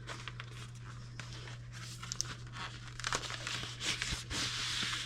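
Cardboard and paper packaging being torn open and handled: scattered crinkling and small clicks, with louder tearing and rustling in the second half.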